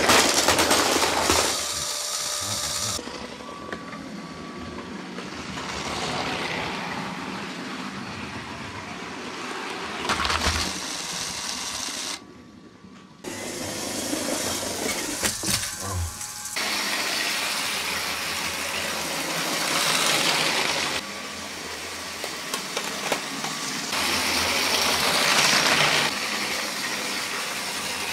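Toy train electric motors whirring, with plastic wheels rattling along plastic track, in several short clips. There are a few sharp plastic clatters.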